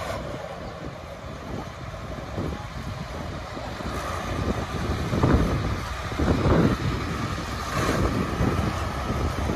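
Diesel pulling tractor's engine running with wind buffeting the microphone, with louder surges about five and six and a half seconds in.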